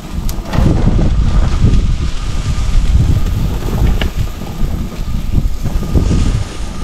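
Wind buffeting the microphone: a heavy, uneven low rumble that rises and falls, with a couple of faint clicks.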